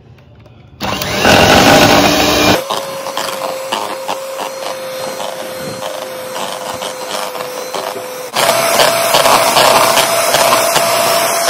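Electric hand mixer running, its twin beaters whipping cream to soft peaks. After a loud, rough stretch near the start, the motor settles into a steady whine. About eight seconds in, the whine steps up to a higher pitch and gets louder.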